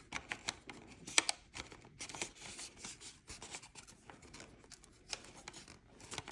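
Hard plastic parts of a 3D-printed sheet-film developing reel being handled, pushed and slid: irregular light clicks and rubbing, with one sharper click about a second in.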